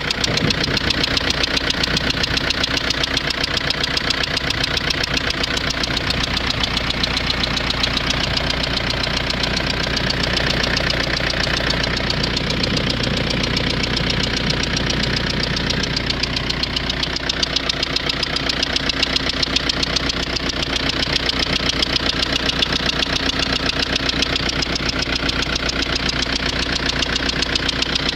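Renault Scénic 1.9 dCi four-cylinder turbodiesel idling steadily with a fast, even knock, which the owner thinks is a fuel injector knocking.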